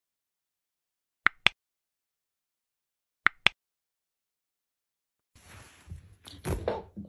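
Two pairs of sharp mouse-click sound effects, about two seconds apart, marking a subscribe button being pressed and then its notification bell. Near the end, low room noise and a few soft knocks and thumps.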